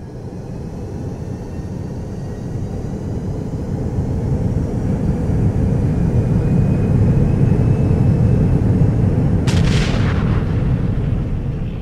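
A deep rumbling effect that swells steadily louder over several seconds, with faint rising whistle-like tones above it and a sharp crackling burst about nine and a half seconds in.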